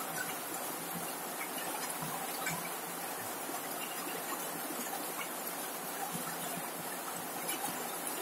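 Steady rain falling on a corrugated zinc sheet roof: an even, dense hiss dotted with the small ticks of single drops striking the metal.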